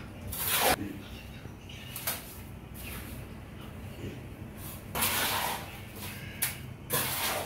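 Wet cement mortar being worked by hand and trowel around the base of a drain pipe: a few short, gritty scraping sounds, one near the start and a cluster from about five seconds in to the end.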